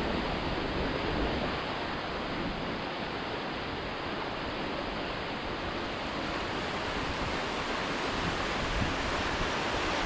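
Steady rushing roar of falling water from a waterfall, even and unbroken.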